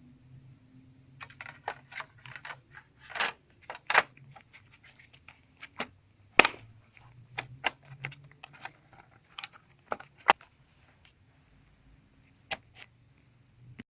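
Irregular sharp plastic clicks and knocks of a laptop being handled as its bottom cover is fitted back on, over a faint steady low hum.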